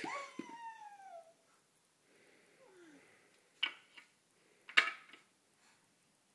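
A baby's high squeal that falls in pitch, a meow-like cry, then a softer falling coo. About a second apart, two sharp knocks come from the wooden ramp toy.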